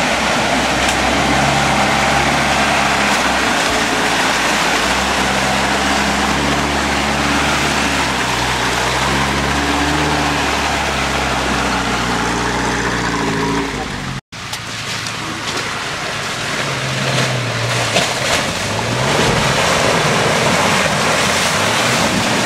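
Off-road 4x4 engines working hard through deep mud ruts, over a constant wash of churned mud and water. First a UAZ off-roader's engine holds fairly steady revs, with its pitch shifting in steps. The sound breaks off for a moment about fourteen seconds in, and then a pickup's engine revs up and down as it ploughs through the mud.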